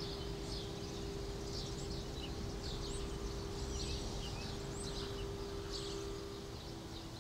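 A single sustained note from a small hand-held wind instrument, held steady and then stepping down slightly in pitch near the end, with birds chirping repeatedly.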